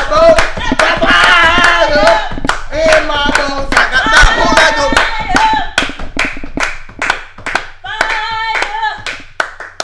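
Voices singing over steady rhythmic hand clapping, in the manner of a church praise break. After about six seconds the singing drops out for stretches while the clapping keeps going.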